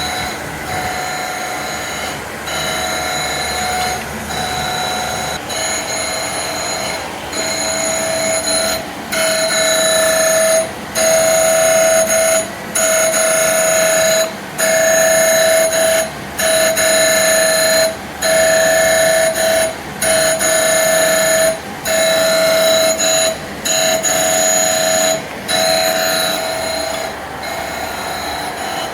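KGS 250AH surface grinder running, with a steady high-pitched whine that breaks off briefly about every two seconds as the table travels back and forth. It gets louder about a third of the way in.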